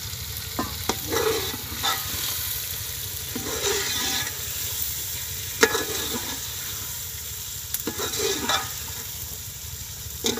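A metal ladle stirring fish pieces through thick masala curry in a metal pot: scraping and stirring with the curry sizzling, broken by several sharp clinks of the ladle against the pot, the loudest about halfway through.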